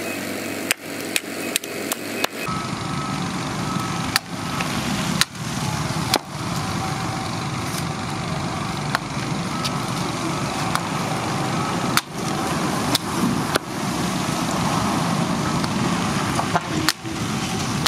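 A hand-forged axe chopping into a green bamboo pole resting on a stone block: a string of sharp, irregularly spaced chops over a steady background din.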